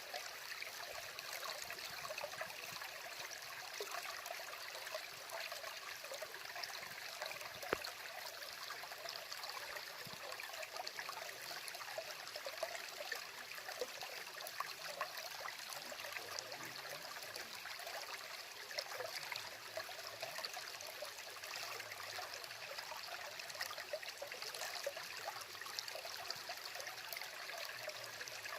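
Woodland stream of water running steadily, an even rush of flowing water, with one short click about eight seconds in.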